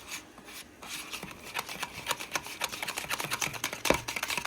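A utensil beating yogurt and gram flour batter in a bowl, making fast, rhythmic clicks against the bowl that start about a second in, with one louder knock near the end.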